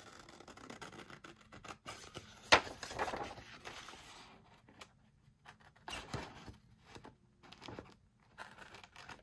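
Scissors cutting paper: irregular snips and rasps, with one sharp snip about two and a half seconds in as the loudest sound.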